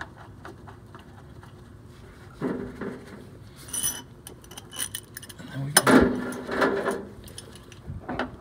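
Metal clinks and clanks of a wrench and the steel drain plug being handled against the oil pan, with the loudest clank about six seconds in.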